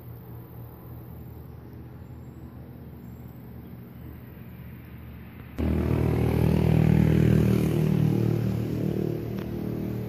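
A motor vehicle's engine running as a low, steady hum. A little over halfway through it suddenly becomes much louder and fuller.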